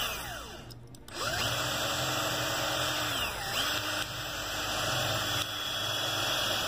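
Electric drill boring out the windshield rivet of a diecast metal toy truck. The motor winds down just after the start, spins back up about a second in, dips briefly and recovers around the middle, and runs steadily until it stops near the end.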